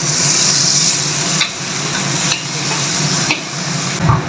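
Boiled chickpeas sizzling in hot oil in an aluminium wok as a metal ladle stirs them, the ladle scraping the pan about once a second.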